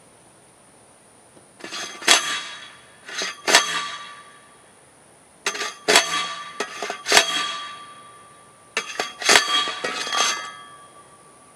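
A manual post driver slamming down onto a steel post, driving it into the ground. The metal clanks ring on after each strike and come in four bursts of a few blows each.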